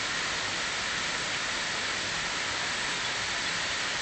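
Small waterfall pouring over rock into a plunge pool: a steady, even rush of falling and splashing water.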